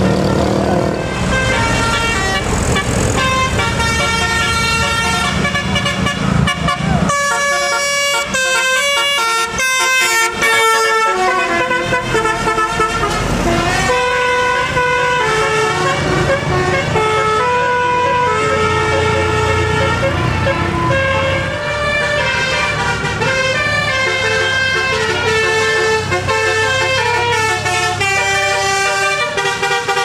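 Telolet 'basuri' multi-tone bus horns playing quick stepped melodies, with a fast run of notes about a third of the way in, over the low running of the bus engines.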